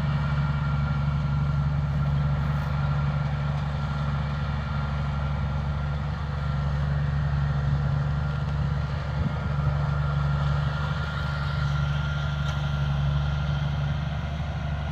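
Combine harvester running steadily: a continuous low engine drone with a thin, steady high whine above it.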